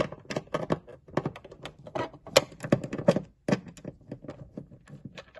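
Phillips screwdriver unscrewing the screws of a plastic battery cover on an automatic pet feeder, making a quick, irregular run of clicks and taps.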